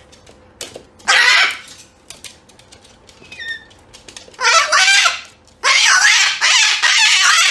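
Loud, harsh bird calls in three bursts, the last lasting about two seconds.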